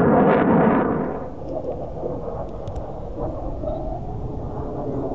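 A loud roar for about the first second, cutting off suddenly. Then the low, steady rumble of a distant Eurofighter Typhoon's twin EJ200 turbofan jet engines.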